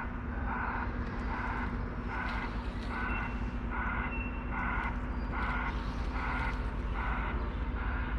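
Heavy construction machinery running with a steady low rumble, and a back-up alarm pulsing evenly about twice a second.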